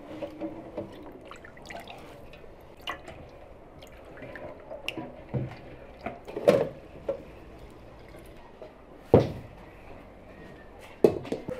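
Water dripping from a stainless-steel colander of freshly washed raspberries, with a few louder knocks, the loudest about nine seconds in.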